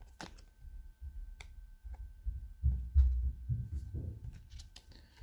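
Handling noise from trading cards being sorted by hand at a wooden table: irregular low bumps and thuds with a few light clicks as cards are moved and set down. A faint steady hum sits underneath.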